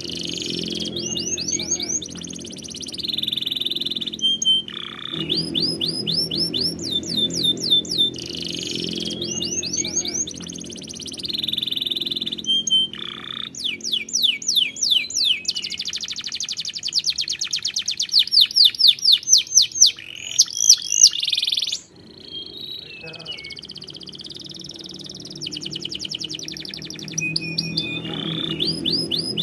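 Domestic canary singing: a continuous song of fast trills, each a run of rapidly repeated sweeping notes, switching to a new trill every few seconds, with a very fast rolling trill around the middle. Soft background music plays underneath.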